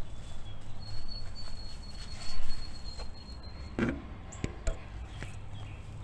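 Walking outdoors on grass: a thin high whistle held steady for about three seconds, then a few short knocks, over a low steady hum.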